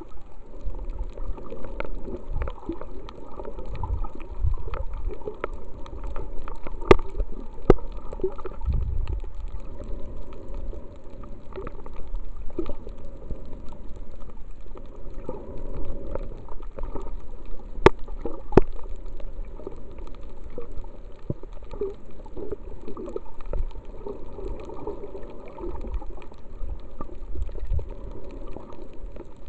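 Underwater sound picked up by a submerged camera: a steady muffled gurgle of moving water with a low rumble, scattered with many sharp clicks. The sharpest clicks come in a pair about 7 seconds in and another pair about 18 seconds in.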